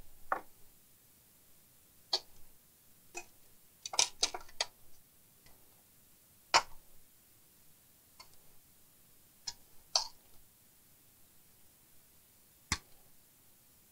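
Scattered sharp clicks and taps, about ten in all with a quick cluster of several around four seconds in, from a TV power supply circuit board and its plastic back cover being handled and turned over on a wooden bench.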